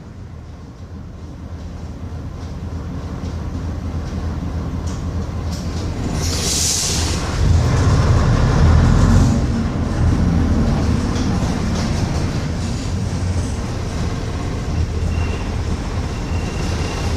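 Bristol RELL6L bus's rear-mounted diesel engine running under way, getting louder as it pulls. About six seconds in comes a short hiss of air, then the engine is at its loudest for a couple of seconds before settling to a steadier drone with a faint whine near the end.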